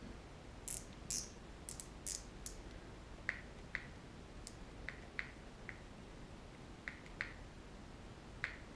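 Reassembled baitcasting reel clicking faintly: its free-spool thumb button being pushed and the clutch popping back into gear. About a dozen irregular clicks, the sharpest in the first couple of seconds.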